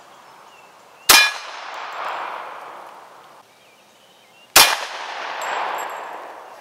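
Two .45 pistol shots from an HK USP Tactical, about three and a half seconds apart, each hitting a quarter-inch mild steel plate with a metallic clang. Each is followed by a long fading echo. The first is a standard-pressure .45 Auto round, the second a hotter .45 Super.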